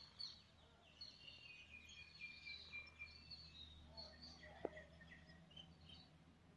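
Faint outdoor ambience: small birds chirping in short, high notes over a low, steady rumble, with a single short click a little past the middle.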